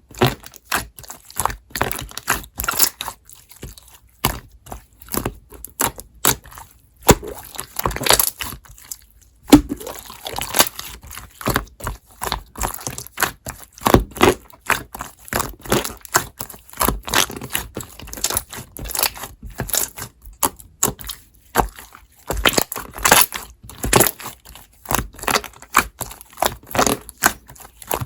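Slime being squeezed and pressed by hand, giving dense, irregular crackling and popping clicks with short pauses.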